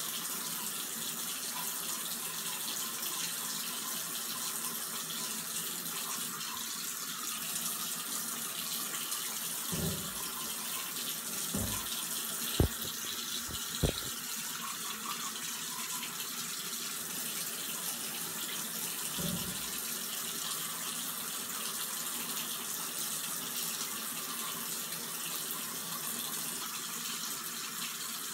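Bathroom tap running steadily into the sink. About halfway through there are two sharp knocks, the loudest sounds here, as a hand bumps the phone that is recording, with a few softer thumps around them.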